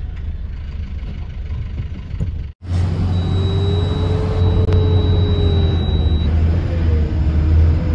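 A truck's engine and road noise heard from inside the cab while driving: lighter traffic noise at first, then, after a brief gap about two and a half seconds in, a steady, heavier low rumble.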